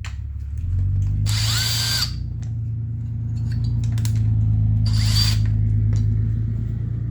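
Power drill/driver running in two short bursts, each spinning up with a high whine, over a steady low hum.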